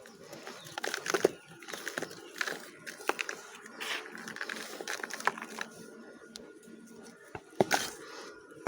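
Dry Multani Mitti (fuller's earth clay) chunks being crumbled, giving a run of irregular dry crunches and crackles, loudest about a second in and again near the end.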